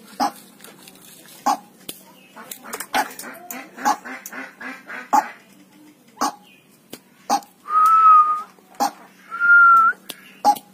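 Around a tame white-breasted waterhen: sharp clicks about once a second, a run of quick short calls in the middle, and two steady held whistles near the end, the loudest sounds.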